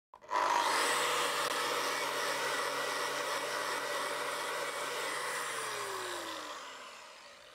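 Angle grinder starting up and running with a finishing disc moved quickly back and forth over steel box section, a fast action that leaves fish-scale marks. About five seconds in the motor is switched off and winds down with a falling whine.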